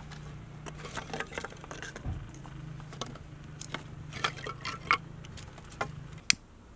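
Dry sticks and twigs knocking and clicking as they are laid by hand on a smouldering fire in a clay hearth: an irregular string of light clicks, with a sharp click near the end. A low steady hum underneath stops shortly before the end.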